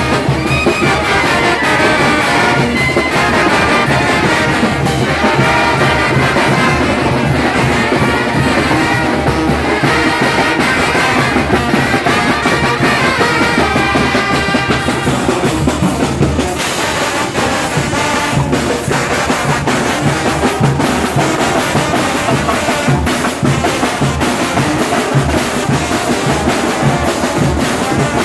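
A Mixtec brass band (banda de viento) playing: trumpets and trombones carry the melody over a steady drum beat.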